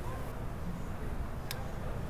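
Steady low workshop rumble, with one sharp click of a hand tool on metal about a second and a half in.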